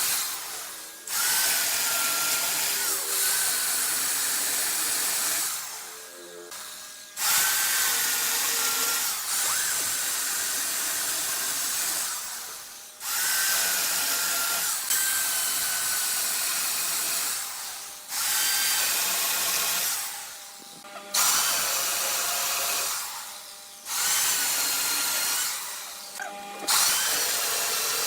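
Wood lathe with a turning tool cutting the spinning wood: a high, hissing scrape in passes of a few seconds, broken by about six short pauses, over a faint steady whine.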